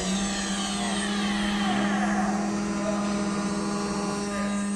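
A CNC router with an oscillating knife cutter running: a steady machine hum with higher whining tones that glide down in pitch over the first couple of seconds.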